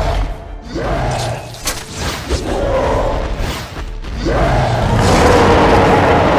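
Cartoon fight sound effects over music: booming thuds and a deep rumble, a couple of sharp impacts, then a louder, steady rush of noise from about four seconds in.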